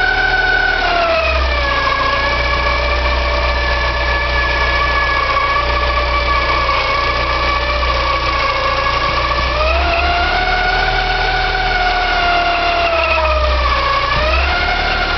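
Porsche 944 2.5-litre eight-valve four-cylinder engine running at low speed with a loud, high-pitched whine over the engine hum. The whine's pitch follows the engine speed: it drops about a second in, climbs back around ten seconds, then dips and recovers near the end. The owner finds the noise hard to locate, hears it coming from the front of the engine, and suspects the oil pump or the balance shafts.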